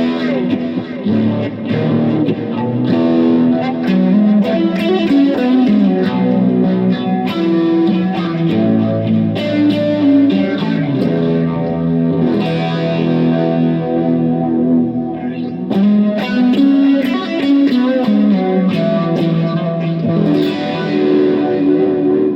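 Stratocaster-style electric guitar on its neck pickup playing chords and melodic fills through two phaser pedals run together, a Mojohand Mr. O and a Golden Years Phase 45, to imitate a Univibe's swirl. It also has light overdrive from a Prince of Tone and echo from a smooth delay.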